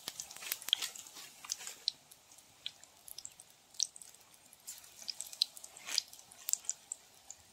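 Potato bajji deep-frying in hot oil in a kadai, crackling and sizzling with irregular sharp pops.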